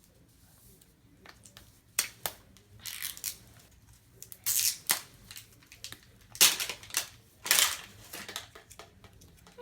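Plastic wrapping on L.O.L. Surprise doll packaging being torn and peeled open, a few sharp snaps followed by several short crackling, crinkling bursts.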